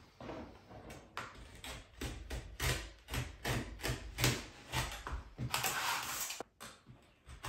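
Utility knife slicing through Schluter Ditra-Heat uncoupling membrane, a dimpled plastic sheet, in a series of short cutting strokes about two a second, pausing briefly near the end.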